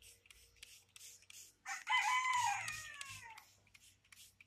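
A rooster crowing once, a long call of nearly two seconds that falls in pitch at the end. Behind it, a faint high ticking repeats about three times a second.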